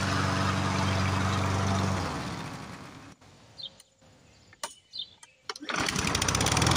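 Briggs & Stratton 550-series push mower engine running, then dying away to a stop about two seconds in. After a near-quiet stretch with a few clicks and a bird's chirp, the engine fires up again near the end and keeps running.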